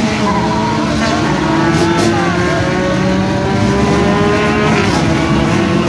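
Drag-racing car's engine running loud and steady, with tyre squeal.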